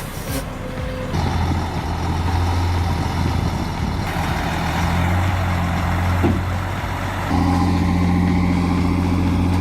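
Heavy truck engine running steadily, its low hum jumping louder about a second in and again around seven seconds.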